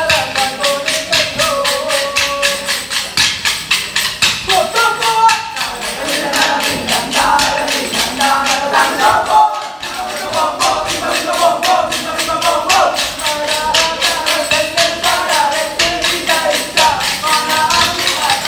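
Kolkali stick dance: the dancers' short sticks clack against each other in a fast, even rhythm under male voices singing the accompanying folk song.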